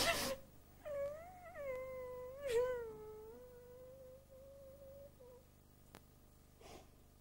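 A woman crying theatrically. A sobbing gasp leads into a long wavering wail that settles into a held note, broken by another sob about two and a half seconds in, with a short sobbing breath near the end.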